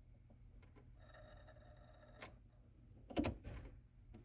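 Switches and levers on a vacuum-tube tester being worked during a gas test on a tube: a sharp click a little after two seconds in and a louder knock about a second later, over a faint low hum and a brief faint buzz before the first click.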